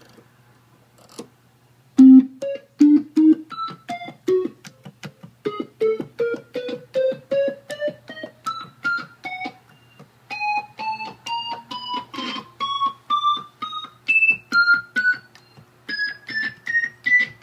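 Vox Continental V301E transistor combo organ played one key at a time, single clean notes climbing step by step up the keyboard at two to three notes a second, over a steady low hum. The notes start about two seconds in, after a single click.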